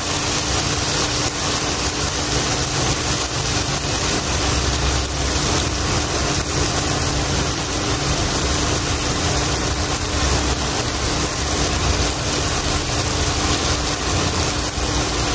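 Marinated pork shoulder sizzling steadily in melted butter in a stone-coated frying pan on an induction cooktop, with a faint steady hum underneath.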